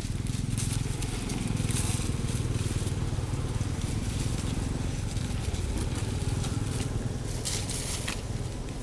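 Dry fallen leaves crackling and rustling in short spells over a steady low rumble.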